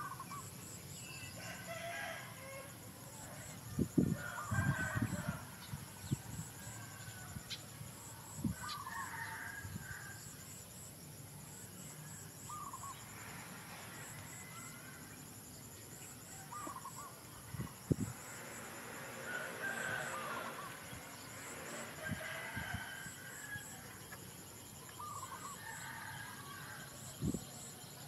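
Chickens clucking in the background, with a rooster crowing about twenty seconds in. A faint high chirping repeats throughout, and a few soft knocks sound now and then.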